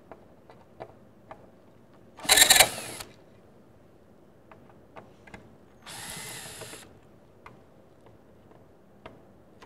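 Cordless drill/driver running in two short bursts as it drives screws in the sheet-metal top cover of a centrifuge: a loud burst about two seconds in, then a steadier, quieter burst with a steady whine about six seconds in. Small clicks and taps of hands and metal come between.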